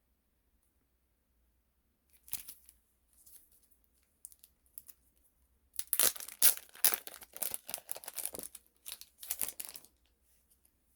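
Photo card packaging being torn open and crinkled by hand: a few light rustles, then about four seconds of dense, crackly tearing and crumpling.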